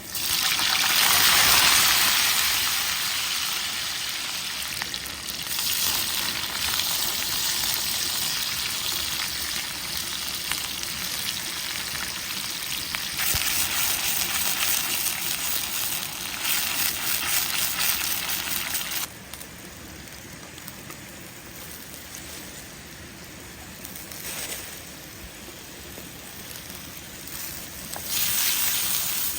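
Food frying in hot oil in a pan, starting with a sudden loud sizzle as it goes into the oil and settling into a steady frying hiss that swells and fades. About two-thirds of the way in it drops abruptly to a quieter sizzle, with one more loud burst of sizzling near the end.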